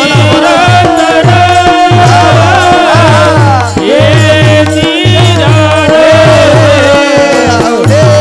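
Kirtan panchapadi devotional song: a voice singing a winding, ornamented melody over a steady held drone note, with a regular rhythm of low hand-drum strokes.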